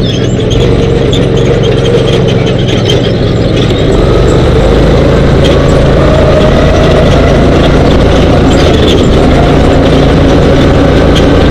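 Dune buggy engine running loud, heard from on board, getting louder and rising a little in pitch about four seconds in as the buggy speeds up across the sand.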